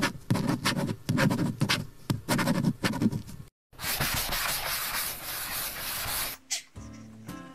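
Intro sound effects of paint-brush strokes: a quick run of rough brushing rubs, then after a brief break a steady rushing hiss of about two and a half seconds.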